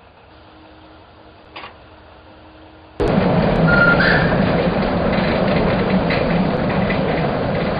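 A faint hum with a single click, then about three seconds in an abrupt cut to the loud, steady rumble of a narrow-gauge Decauville logging train running, with a brief high tone soon after the rumble starts.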